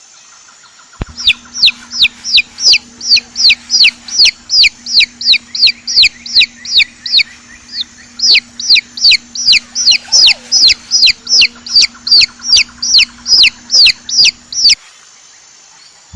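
A chick peeping over and over, high sharp notes that fall steeply in pitch, about three a second, starting about a second in and stopping shortly before the end, with a faint steady hum underneath.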